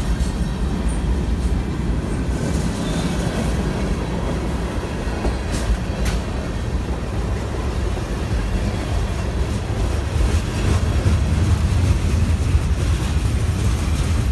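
Freight train moving in the yard: a steady low rumble of locomotive and rolling cars, with a couple of sharp clicks about six seconds in. The rumble grows louder for the last few seconds.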